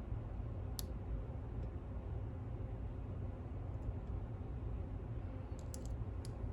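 A lock pick working the pins of an ASSA Maximum+ lock: sharp small metallic clicks, one about a second in and a short cluster near the end, over a steady low hum.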